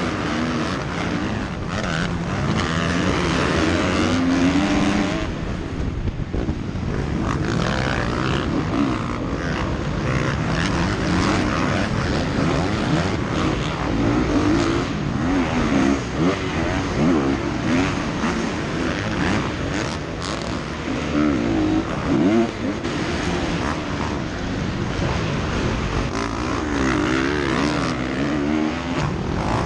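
Dirt bike engine revving hard on an onboard recording, its pitch rising and falling again and again as it is throttled and shifted, with a pack of other motocross bikes running close by.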